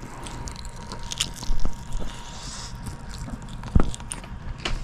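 Fried chicken being bitten and chewed close to the microphone, with a few sharp crunchy clicks and a soft low thump.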